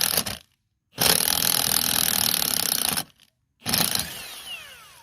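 Power tool backing out the rear wheel bearing hub's mounting bolts, running in bursts: one ending just after the start, a two-second run, then a short burst whose pitch falls away as the tool spins down.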